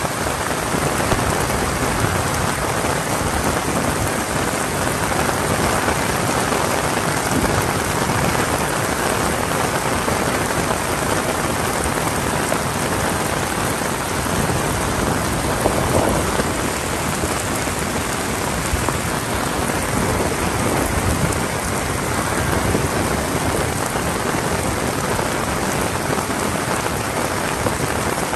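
Heavy rain falling steadily and densely on surfaces.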